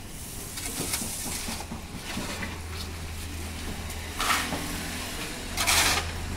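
Concrete mixer machine running with a steady low hum, with two short, loud rushes of scraping noise about four and five and a half seconds in.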